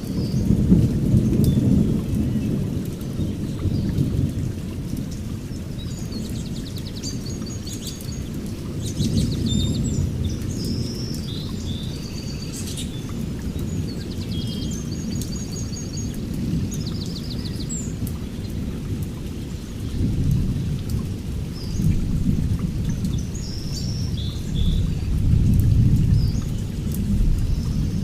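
Rain falling steadily while thunder rolls low and continuously, swelling several times and loudest near the end. Birds chirp and trill in short, high phrases throughout.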